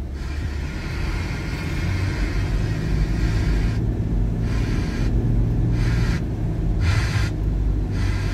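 Car cabin in the rain: a steady low rumble of the engine and road, with the hiss of tyres on a wet road. From about four seconds in, the hiss swells and drops away about once a second.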